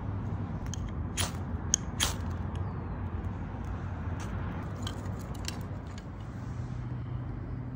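A fire starter struck twice, two short sharp scrapes about a second apart, then a few small crackles as the wood shavings catch and burn. A steady low rumble runs underneath.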